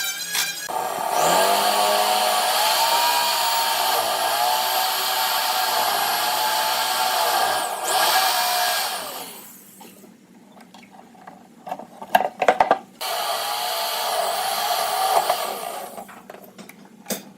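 Electric power tool running in two spells, its motor whine dipping and recovering as it is loaded, with a few sharp knocks in the gap between.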